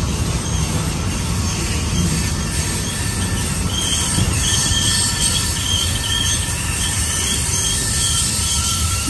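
A train passing through a sharp curve, its steel wheel flanges squealing against the rails in high, wavering tones that come and go over a steady rumble.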